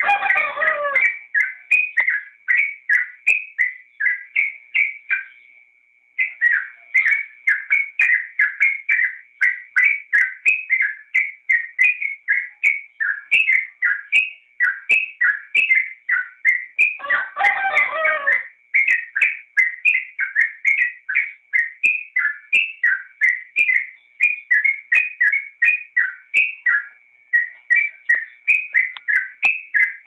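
Yellow-vented bulbul (trucukan) singing: a long run of short, bubbly whistled notes, two to three a second, with a brief pause about six seconds in. Twice, at the start and about 17 seconds in, a louder, lower and fuller call about a second long breaks through.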